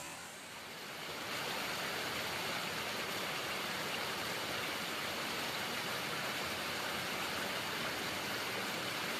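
Steady rushing of water flowing along a small muddy stream channel.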